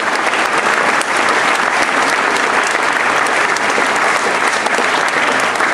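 A large crowd applauding, a steady dense clapping.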